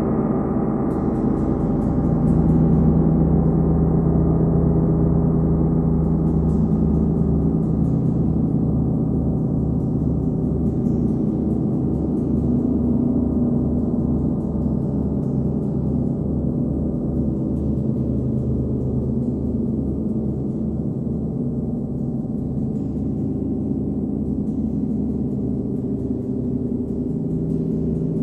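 39-inch Nepalese wind gong ringing on in a dense, sustained wash of low tones, set going with a hard rubber ball mallet, with a steady throbbing pulse underneath. The brighter shimmer on top fades over the first few seconds.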